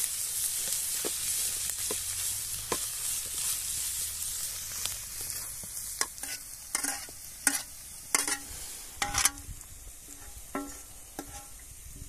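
Food sizzling in a hot pan, then a metal utensil stirring and knocking against the pan several times in the second half, each knock ringing briefly.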